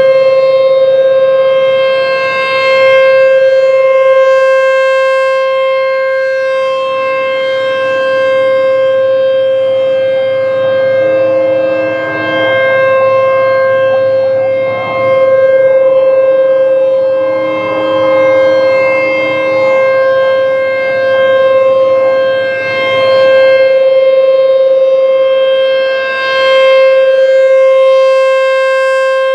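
ASC T-128 outdoor warning siren sounding a steady tone during its full-length tornado-drill test. The loudness swells and fades every three to four seconds as the rotating siren sweeps past.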